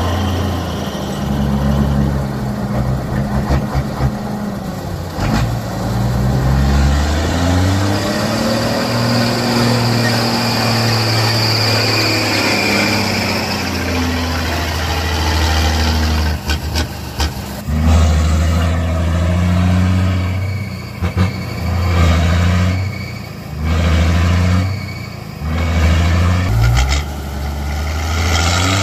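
Motor vehicle engine running hard, its revs rising and falling repeatedly, with several brief drops in power in the second half as the throttle is let off and reapplied. A few short clicks or knocks are mixed in.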